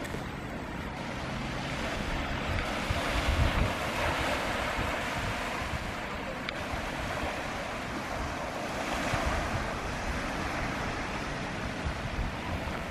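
Ocean surf washing on a beach, a steady rushing, with wind buffeting the microphone that gusts louder about three to four seconds in.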